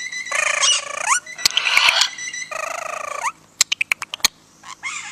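Pet parrot calling: three harsh, pitched calls in quick succession, several rising at the end, then a quick run of about six sharp clicks, and a short call near the end.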